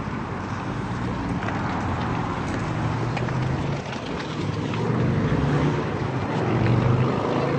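Vehicle engines running steadily on the highway, a low hum over road noise that grows slightly louder about five seconds in.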